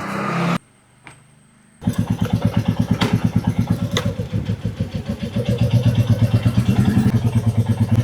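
Royal Enfield J-series single-cylinder engine starting and idling with a steady, even thump of about eight beats a second. It comes in a little under two seconds in, after a short rising whir that cuts off.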